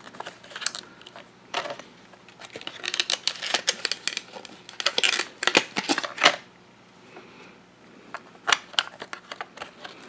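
Laptop DDR3 SO-DIMM memory modules being handled and pressed down into their slots: a run of small clicks, taps and scrapes of fingers, circuit board and plastic retaining clips, coming in bunches with short quiet gaps between.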